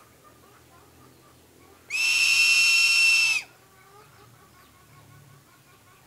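Crested serpent eagle call: one loud, high whistle held at a steady pitch for about a second and a half, starting about two seconds in.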